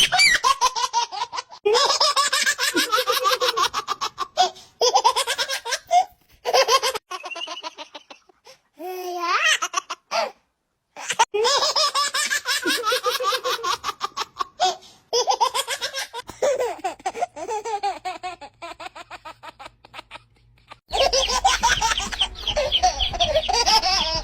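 A baby laughing hard in repeated bursts of belly laughter, separated by short pauses. Near the end a low hum comes in beneath it.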